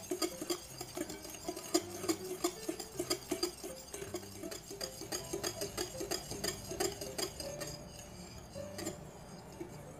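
Wire whisk beating an egg mixture in a glass bowl: fast, continuous clicking and scraping of the metal wires against the glass, which thins out near the end.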